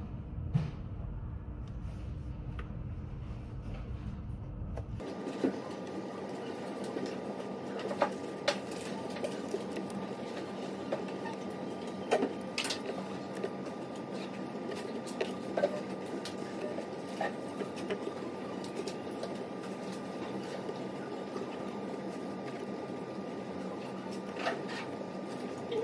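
Steady room hum of a quiet study room, with scattered light taps and clicks from handling a tablet and study sheets on the desk. A low rumble under the hum drops out about five seconds in.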